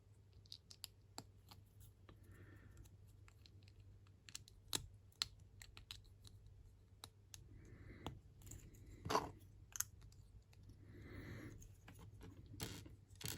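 Faint, irregular clicks and taps of small plastic LEGO minifigure pieces being handled and pressed together, with a few louder clicks about nine seconds in.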